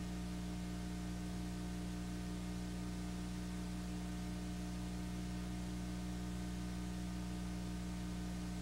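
Steady electrical mains hum with a layer of hiss, unchanging throughout, with no other sound: the noise floor of a silent 1960s home movie's transfer to video.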